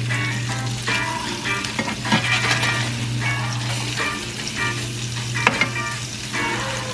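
Crab cakes sizzling as they fry in a ceramic-coated pan, with a slotted metal spatula scraping against the pan as they are pressed and turned. There are sharper clicks about two seconds and about five and a half seconds in.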